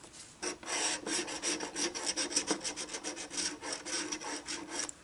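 Scratching the coating off a scratch-off lottery ticket: a quick run of short rasping strokes, several a second, uncovering a row of numbers.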